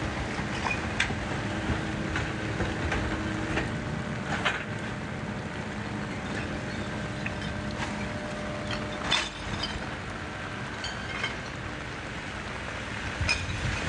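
Heavy rain pouring onto a flooded city street, a steady wash of noise with a low vehicle engine hum underneath. A few sharp knocks and clatters come through, the loudest about nine seconds in.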